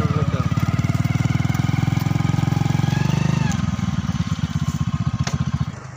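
Motorcycle engine running close by with a steady, rapid chugging beat. It eases off about three seconds in and drops away near the end.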